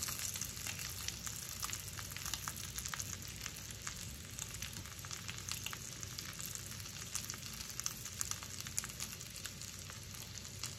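Wild-game burger patties frying in fat in a cast-iron skillet: a steady sizzle with fine crackles and pops.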